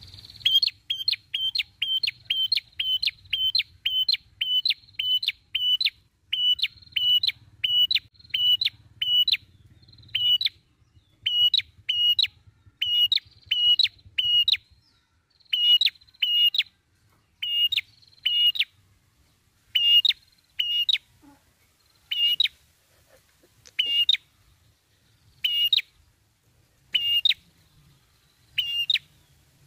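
Tailorbird (prenjak kepala merah) calling: a long series of short, sharp, high notes, at first about two a second, then slowing to spaced pairs and single notes.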